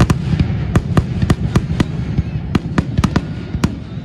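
Aerial fireworks exploding: about a dozen sharp bangs at uneven spacing, loudest at the start, over a continuous low rumble.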